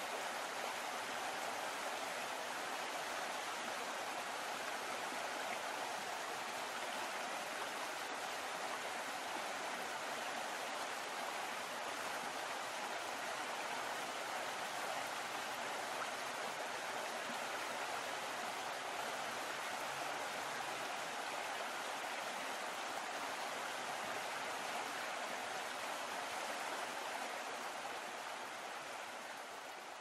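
Steady rush of water churning and splashing in a moving boat's wake, fading out near the end.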